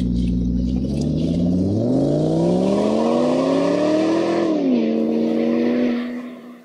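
Engine running low and steady, then revving up in one smooth climb, dropping back and holding briefly before fading out.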